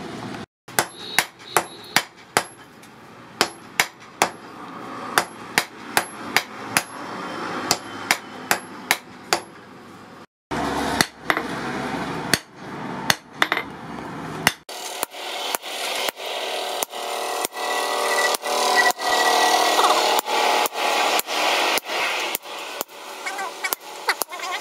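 Hammer blows on a red-hot steel bar on an anvil, about two strikes a second, in runs broken by short pauses, as the bar is forged.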